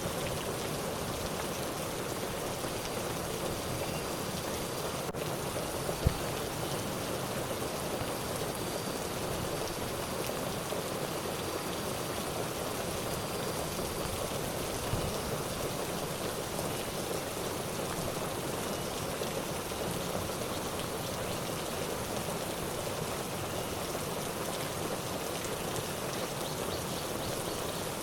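Steady rain falling, with one sharp tap about six seconds in.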